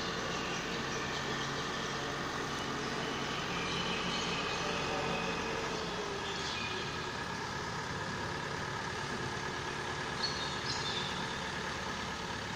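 Mobile crane's engine running steadily while it hoists a tall steel lattice frame, a constant low hum with a faint glide in pitch about six seconds in.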